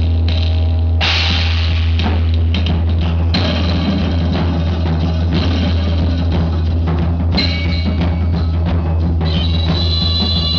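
Free-improvised drumming: dense, irregular strikes on drums and percussion over a steady low drone, with sustained high instrumental tones joining near the end.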